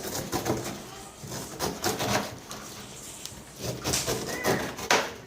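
Knife cutting through the rind of a pineapple in a few sharp strokes, the strongest about two, four and five seconds in.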